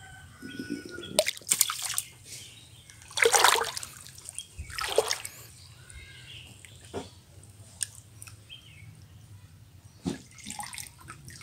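A small hand fish net swishing and splashing through pond water while tilapia fry are scooped out. There are several splashy bursts in the first half and a shorter one near the end, with quiet lapping water between them.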